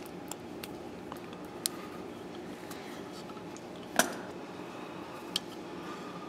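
Hand wire strippers snipping and clipping automotive wiring: a few short, sharp snips, with one loud snap about four seconds in and another about five and a half seconds in, over a steady low hum.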